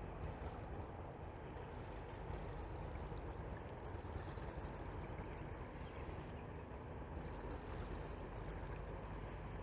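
Great Lakes freighter Walter J. McCarthy Jr. passing at a distance: a steady low rumble with a faint hum, over a wash of moving water.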